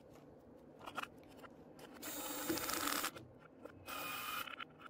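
Scraping and rubbing on the amplifier's metal bottom cover as its screws are fitted by hand. There is a click about a second in, a scrape of about a second at the two-second mark, and a shorter one near the end.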